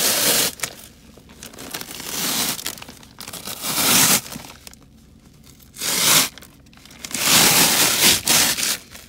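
Clear plastic protective floor cover being pulled up off car carpet, crinkling and tearing in about five bursts, the longest near the end.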